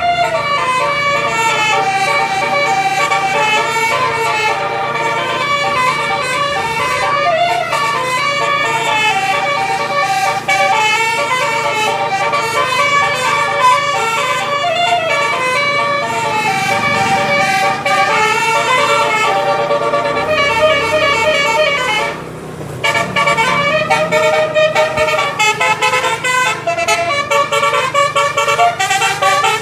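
A bus's 12-note basuri 'telolet' musical air horn playing a long, continuous melody of changing notes, with a short break about three-quarters of the way through.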